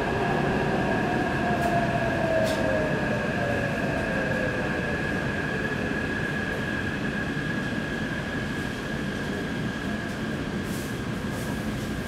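Taipei Metro C381 train heard from inside the passenger car while running: a steady rumble of the wheels on the rails under a steady high whine. Over the first few seconds a motor tone falls in pitch and the noise eases a little as the train slows.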